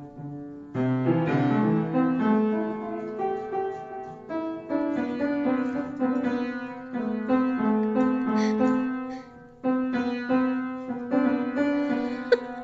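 Background piano music playing a melody of many separate notes.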